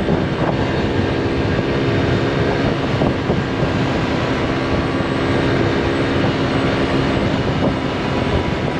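Road noise while riding a motor scooter: a steady rush of wind and tyres with a steady engine drone that fades out near the end.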